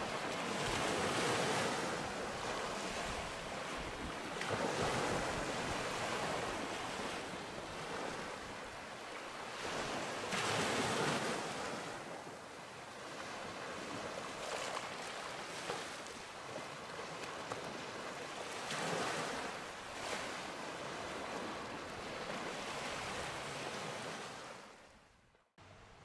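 Small waves breaking and washing up a sandy beach, the surf swelling every few seconds. The sound fades out near the end.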